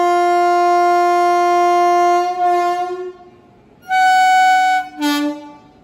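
WAP-7 electric locomotive's horn sounding for departure: a long steady blast that stops about two seconds in, then after a short pause a second blast of about a second on a different pitch and a brief third toot.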